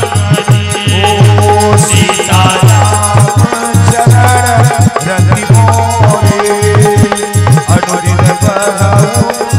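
Indian devotional music played live: a harmonium holding its chords, a hand drum beating a steady repeating rhythm, and small hand cymbals (manjira) jingling over the top.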